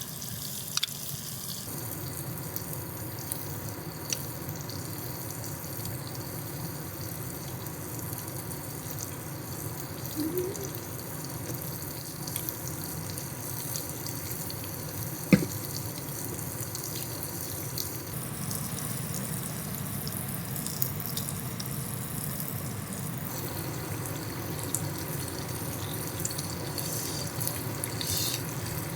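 Steady rush of flowing stream water, with a single sharp click about halfway through.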